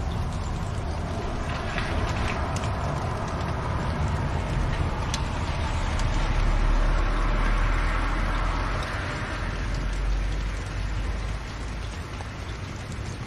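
Fireplace ambience: a steady low rumble of fire with a few faint crackles. The rumble swells about halfway through, then eases off.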